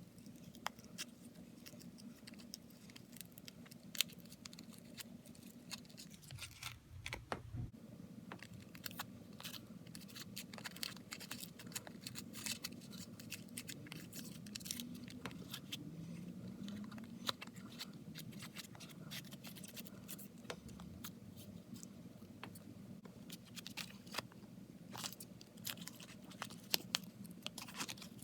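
Faint, irregular clicking and scraping crackles of a business card being worked under the glued back glass of an LG G8X ThinQ phone to pry it loose, over a steady low hum.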